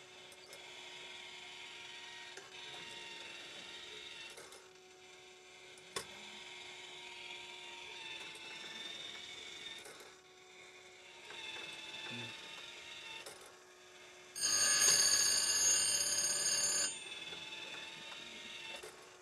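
Electric saw-chain sharpening grinder running with a steady hum, its grinding wheel touching the chain's cutters in repeated passes of a second or two each that give a high, ringing grind. The loudest pass comes near the end.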